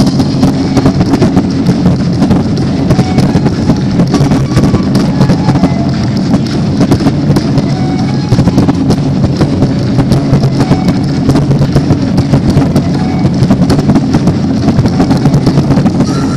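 Loud show music with dense, rapid drum beats running without a break, as at a live stage performance with drums.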